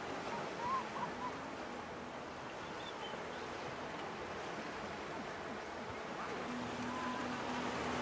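Atlantic surf washing onto the beach in a steady rush, with faint voices in the first second or so and a low steady hum coming in about six and a half seconds in.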